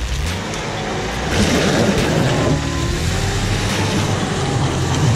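Vehicle engine running steadily while driving, with a louder rushing noise swelling for about a second, about a second and a half in.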